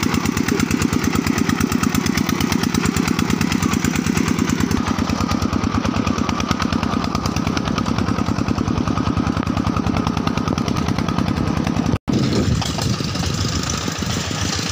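Single-cylinder diesel engine of a two-wheel farm tractor chugging steadily under way, in fast even pulses. About twelve seconds in the sound cuts off for an instant, and a quieter, less even engine sound follows.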